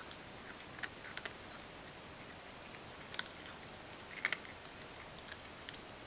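Ragdoll cat eating softened, ground dry cat food: scattered small wet clicks and smacks of chewing and licking, a few sharper ones in the first four seconds or so, then fewer as it stops eating.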